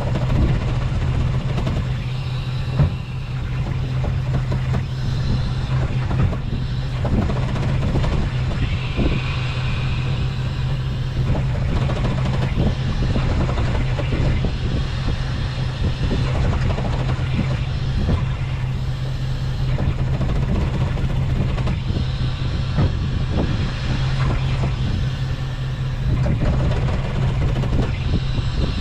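A small fishing boat's engine running steadily with a constant low drone, with scattered knocks and clatter on deck while a line is hauled in.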